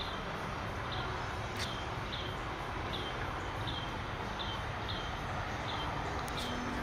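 A small bird chirping: a short, high, slightly falling note repeated about every half second or so, over a steady background hiss.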